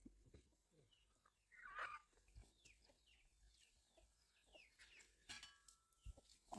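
Faint bird chirping: a run of short, falling chirps, with one louder call about two seconds in.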